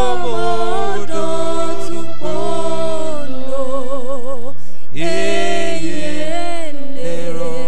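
A man singing a worship song into a microphone, holding long notes, some with a wavering vibrato, with a short break about five seconds in. A steady low hum runs underneath the voice.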